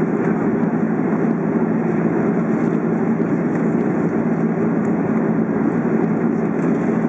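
Steady cabin noise inside an Airbus A330 in flight: an even, low rush of jet engines and airflow with a faint steady hum, unchanging throughout.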